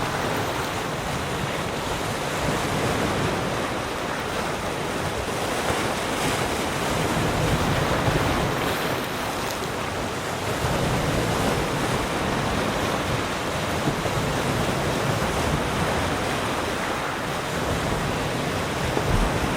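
Calm ocean waves lapping and washing around rocks, a continuous surf noise that swells gently every few seconds, with some wind on the microphone.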